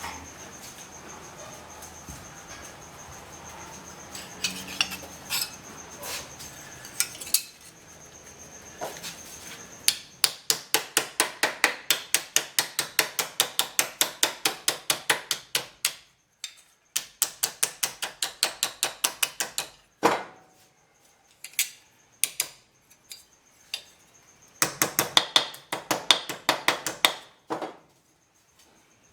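Hammer striking sheet steel in quick runs of blows, about four a second, broken by pauses and a few single strikes: a rust-repair panel being beaten into shape by hand.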